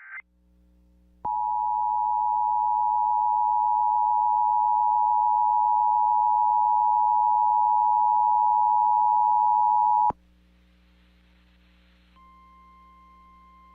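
Emergency Alert System attention signal: the loud, steady two-pitch alert tone, starting about a second in and lasting about nine seconds before cutting off suddenly. After a brief hiss, a fainter single steady tone begins near the end.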